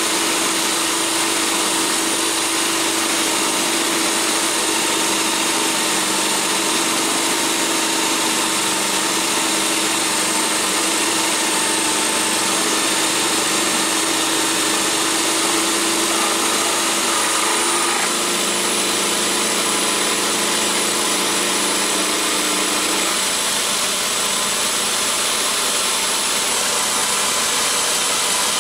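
Electric power drill driving a toolpost drill spindle, a blue carbide end mill milling a 316 stainless steel bar: a steady motor whine with cutting noise, its pitch shifting slightly about two-thirds of the way in.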